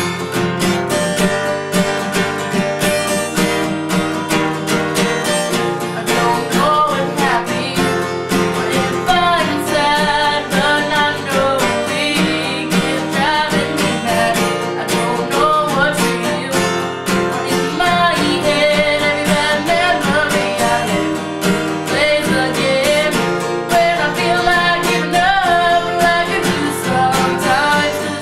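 A self-written song performed on strummed acoustic guitar, with a solo voice singing over it that comes in about six seconds in.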